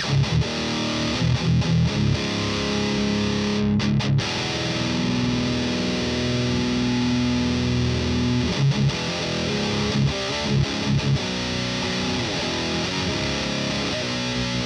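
Heavily distorted electric guitar played through an Adorable Electronics Heckmouth distortion pedal. Short choppy chugs alternate with long held chords: one chord rings from about four and a half seconds in, and more chugs around eight to eleven seconds give way to another held chord.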